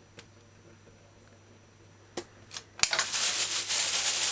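Thin black plastic bag crinkling loudly as a hand gathers it up around vegetable peelings, starting suddenly almost three seconds in after a couple of light clicks.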